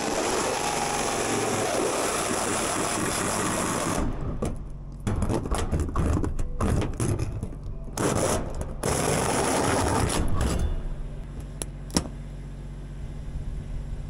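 Battery drill driving a hole saw through the steel sheeting of a wall: a steady grinding cut for about four seconds, then, after a brief pause, rougher uneven cutting as the saw breaks through, stopping a few seconds before the end.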